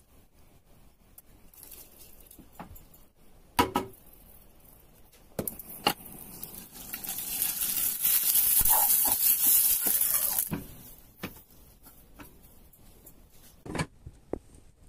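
Boiled meat sizzling in a hot frying pan as saffron liquid is poured over it: a loud hiss lasting about four seconds in the middle. Sharp utensil knocks come before it, and another knock near the end.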